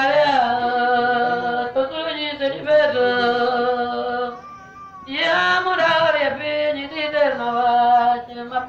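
A single voice singing in long held, wavering notes that slide between pitches, in two phrases with a short break about four and a half seconds in.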